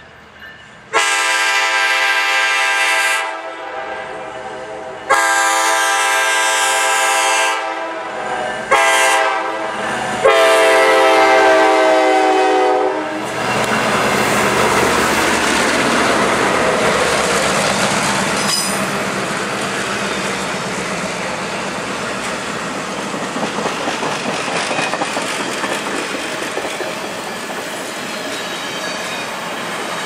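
Nathan K5LA five-chime air horn on a Norfolk Southern F9A streamlined diesel locomotive sounding the grade-crossing signal: two long blasts, a short one, and a final long one. The train then rolls past close by, its F-units and passenger cars making a steady rumble and a clickety-clack over the rail joints.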